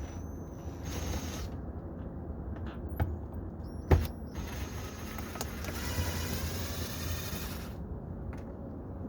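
Hitachi cordless drill with a 7mm socket on an extension running in two short bursts, backing out a door-panel screw. A sharp click comes between the bursts, about four seconds in, and is the loudest sound.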